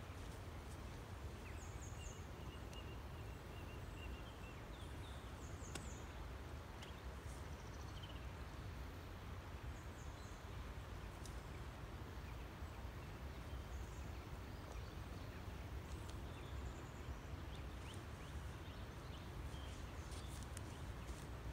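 Riverside ambience: a steady low rumble of wind and flowing river water, with scattered short bird chirps.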